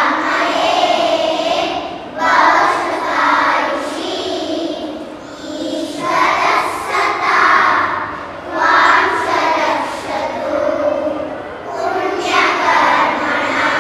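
A group of children singing together, in phrases of about two seconds with short breaks between them.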